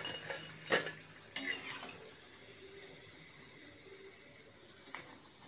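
A steel ladle clinks against a stainless steel plate a couple of times as fried vadas are lifted out of the oil onto it. Then a faint, steady sizzle of the remaining vadas frying in the kadai.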